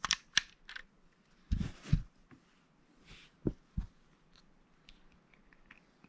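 Plastic Lego bricks being handled and pressed together: a few sharp clicks near the start, a short rustle with two soft knocks around two seconds in, two more knocks a little later, then light ticks.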